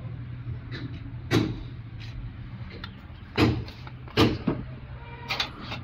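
A handful of sharp clicks and knocks from metal engine parts and tools being handled: single strikes about a second and a half in, then around three and four seconds in, and a quick cluster near the end. Under them runs a steady low hum.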